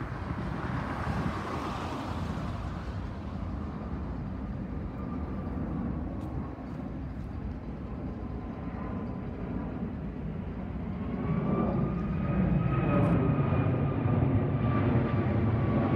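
Jet airliner flying low overhead: a steady engine rumble that grows louder about eleven seconds in, with a high engine whine above it.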